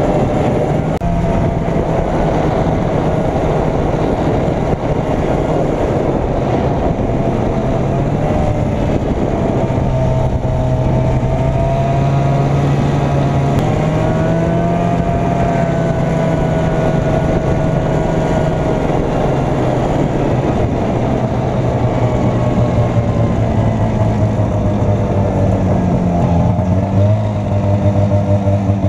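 Arctic Cat Jag 440 Deluxe snowmobile's two-stroke engine running steadily under way, its pitch drifting only a little.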